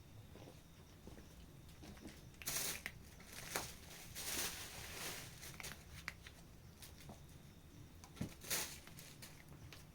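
A cat eating, with a few clusters of short, irregular crunching and rustling noises.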